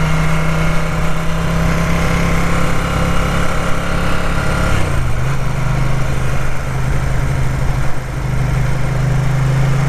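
Ducati 900 SS air-cooled carburetted L-twin running under way. Its pitch drops about halfway through, then holds steady again.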